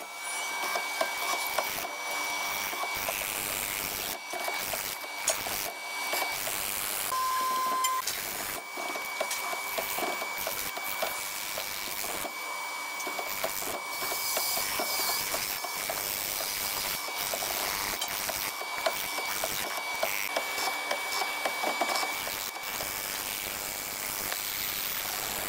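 Hollow-chisel mortising machine running and plunging its square chisel into hardwood: a steady high whine with many irregular knocks and crunches as the chips are cut out.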